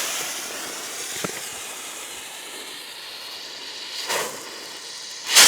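Cloudbuster firework rocket: a steady hiss that slowly fades, with a small sharp pop about a second in and a short burst about four seconds in. A much louder firework burst comes right at the end.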